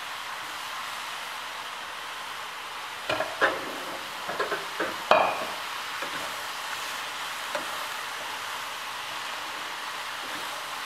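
Vegetables (broccoli, mushrooms, onion) sizzling in a hot skillet, a steady hiss, with a few knocks and scrapes as they are stirred with a wooden spatula between about three and five seconds in.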